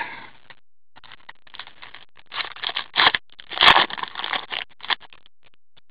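Foil hockey card pack being torn open and its wrapper crinkled by hand: a run of crinkling rustles, loudest with a sharp tear about three and a half seconds in.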